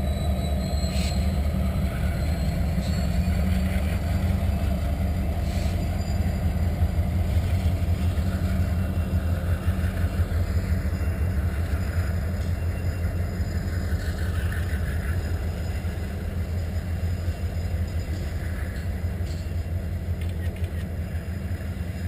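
Freight train cars rolling past, a steady low rumble of steel wheels on rail that eases slightly toward the end. A faint high wheel squeal and a few light clicks come in the first few seconds.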